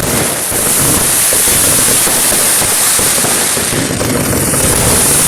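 Dense, unbroken barrage of firecrackers bursting in rapid succession, a continuous crackling rattle of bangs with no pause, from a Kerala vedikettu fireworks display.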